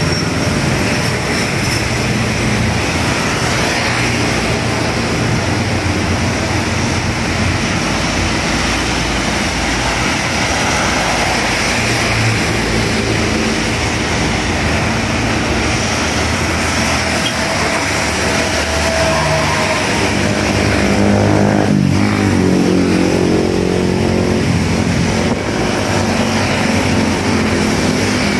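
Steady traffic on a rain-wet road: small motorcycles and cars passing, their engines over a continuous hiss of tyres on wet asphalt. One vehicle's engine rises in pitch as it passes, about twenty seconds in.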